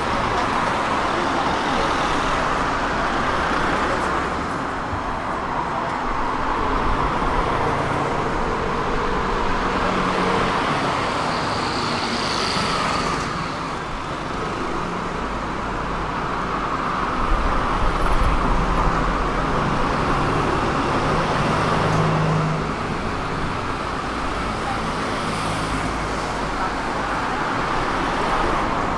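Tram running along its tracks: a steady rolling rumble with a low motor hum, and a brief high-pitched squeal about twelve seconds in.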